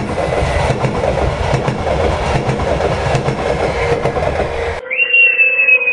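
A train rolling on the rails, its rumble and wheel clatter steady. About five seconds in, the rumble cuts off and a single high, shrill, slightly falling tone begins.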